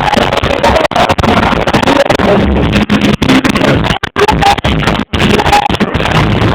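Live reggae band music picked up by a phone microphone, overloaded and distorted into a dense smear. The sound drops out for an instant several times.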